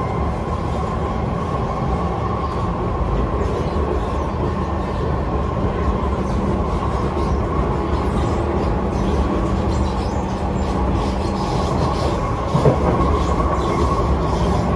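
Kawasaki C151 metro train running at speed, heard from inside the carriage: steady rumble of wheels on rail with a constant hum and a thin whine. A short knock sounds near the end.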